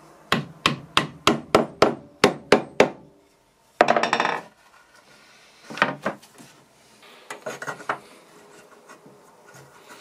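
A hammer tapping glued wooden biscuits (flat dowels) into the slots along a board's edge: about ten quick strikes, roughly four a second. Then a short scraping rub and a few scattered knocks as the two glued boards are pushed together.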